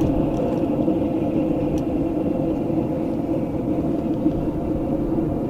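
A forge running with a steady low roar. Faint small clinks of metal come through twice.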